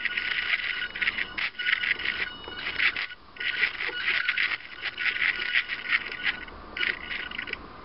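Tiny 7 mm pager-type DC motors whining through worm gears as they drive the robot leg's joints, with fine rapid clicking, starting and stopping in short spurts as the control knob is turned. The whine cuts off shortly before the end.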